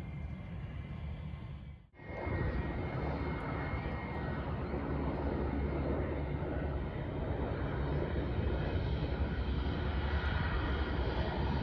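Jet airliner's engines running as it taxis slowly along the runway: a steady low rumble with a faint whine, growing slowly louder. It breaks off in a brief gap about two seconds in.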